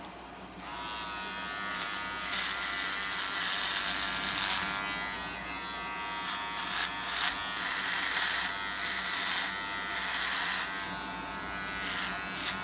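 Electric razor buzzing as it shaves a beard, switched on about half a second in, with a rougher rasp in stretches where it cuts through the whiskers.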